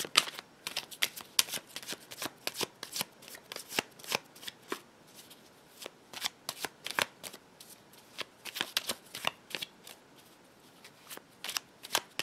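A Smith-Waite Centennial Edition tarot deck being shuffled overhand by hand: an irregular run of quick, crisp card slaps and clicks, easing off briefly twice along the way.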